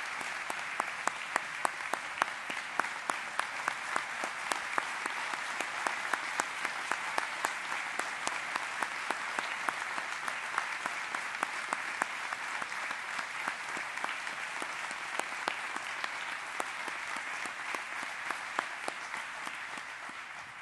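Audience applauding: a dense, steady clatter of many hands clapping, with sharp single claps standing out, dying away at the very end.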